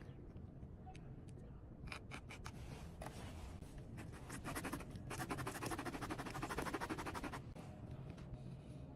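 Scratching and rubbing from tire-repair tools being handled, with a fast run of clicks from about five to seven seconds in.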